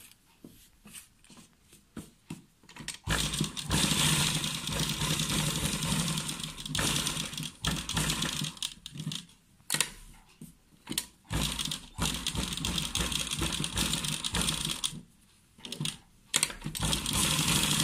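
Sewing machine stitching fabric in short runs with brief stops as the seam follows a curve. A few light clicks come first, then runs of steady, rapid clatter for about one to four seconds at a time.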